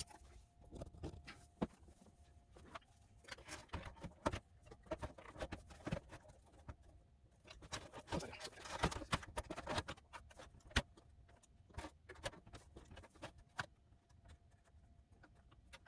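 Scattered light clicks, knocks and rustles of a computer power supply being handled and offered up to a desktop tower case to check its fit, with a faint steady hum underneath.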